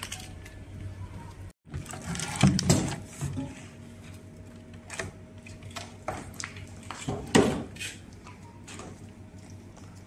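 Scattered knocks and clatters of hard objects being handled on a workbench, with louder clunks a couple of seconds in and again about seven seconds in, over a steady low hum.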